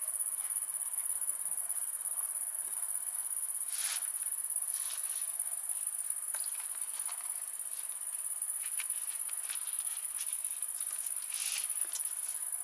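Steady high-pitched trill of crickets, with soft rustles and taps of a lavash flatbread being rolled up by hand on a table.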